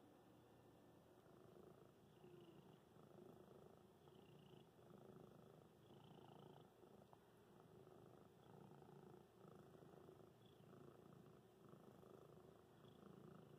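Domestic cat purring close up, a faint steady purr that swells and fades in a regular rhythm.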